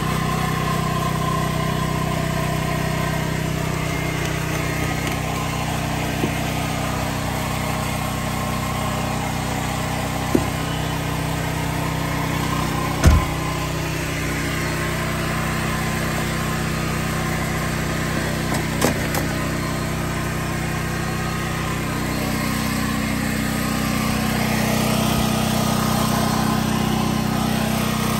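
A small engine running steadily at a constant speed, with a few short knocks, the loudest about 13 seconds in.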